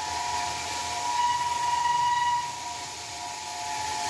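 RMT S-FAB CM 30-31 column bandsaw cutting through 27-inch ductile iron pipe: a steady high whine over a hiss, getting louder for about a second in the middle.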